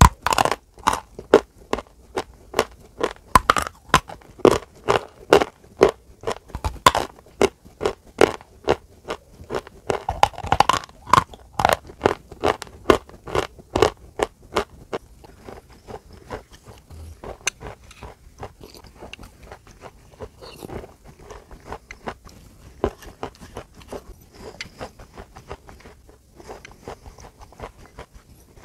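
Chewing of dry chalk: loud, crisp crunches, about two to three a second. From about halfway the sounds turn quieter and softer as chalk paste is eaten.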